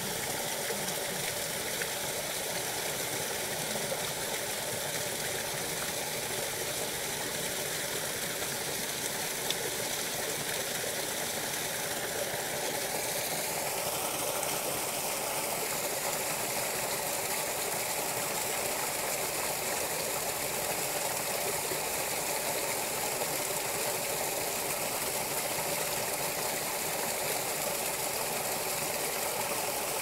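A stream of water pouring steadily and splashing onto a sulcata tortoise's shell; the tone of the splashing shifts higher about halfway through.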